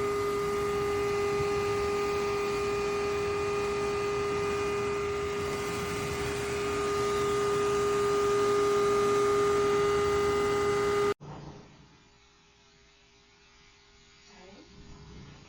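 Electric pet grooming set's motor running at a steady, high-pitched hum. It cuts off abruptly about eleven seconds in, leaving near quiet.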